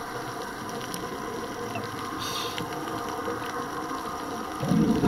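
A scuba diver's regulator breathing, heard underwater: a short hiss of inhalation about two seconds in, then a louder low burst of exhaled bubbles near the end, over a steady underwater background noise.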